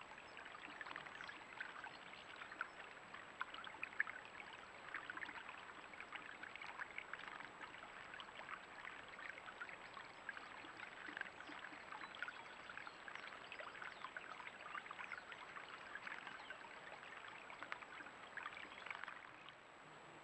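Shallow stream trickling and babbling over stones, faint and steady, with many small quick splashes and drips; it drops away suddenly near the end.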